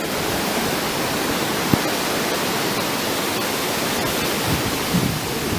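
Steady rushing of fast-flowing water at a waterfall, with a single short click a little under two seconds in.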